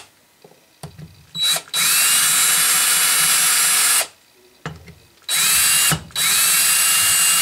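Cordless drill/driver backing socket-head screws out of the back of a three-jaw scroll chuck. It runs in short spells with pauses between them, its whine rising as the motor comes up to speed each time. Faint clicks come in the pauses.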